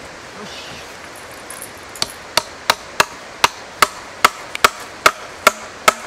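Hammer striking the wooden planks of trail steps, a steady run of sharp blows about two and a half to three a second, starting about two seconds in.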